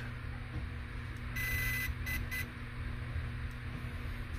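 Hobbywing Max6 ESC in programming mode beeping one long tone followed by two short beeps, about a second and a half in: the code for programmable setting number seven.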